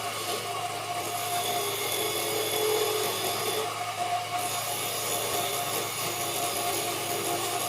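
Wood lathe running with a steady hum while a turning tool cuts the spinning wood with a continuous hiss. The cutting hiss breaks off for under a second a little past the middle, then resumes.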